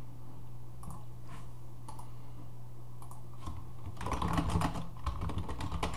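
Typing on a computer keyboard: a few scattered key or mouse clicks, then a quick run of keystrokes in the second half, over a steady low hum.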